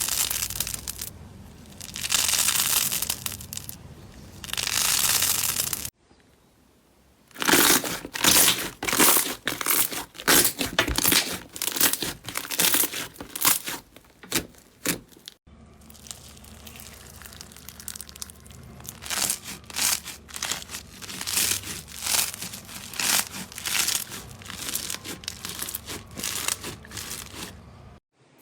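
Slime being worked by hand, crackling and crinkling, in three clips that change about six and fifteen seconds in; the middle clip is loudest, a fast run of crackles.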